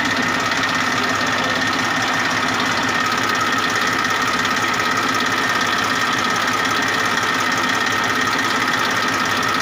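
Massey Ferguson 1035 DI tractor's three-cylinder diesel engine idling steadily, with a fast even diesel clatter.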